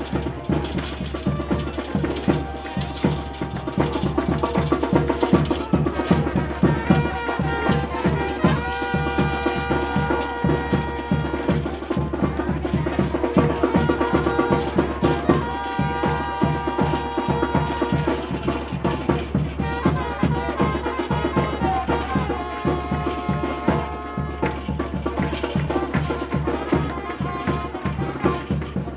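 Music with a fast, steady drumbeat throughout; a melody comes in over the drums about seven seconds in.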